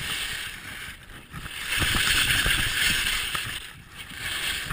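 Skis sliding and carving over packed snow, a steady scraping hiss that swells louder about two seconds in and dips near the end, over a low rumble.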